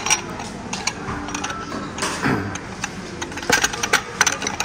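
China teacups clinking and rattling against their saucers as they are turned upright by hand, a scatter of short sharp clicks.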